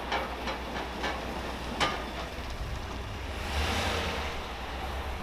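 Chevrolet Silverado pickup towing a boat trailer, its engine running as a steady low hum, with several sharp knocks and clanks in the first two seconds and a brief rush of hissing noise about three and a half seconds in.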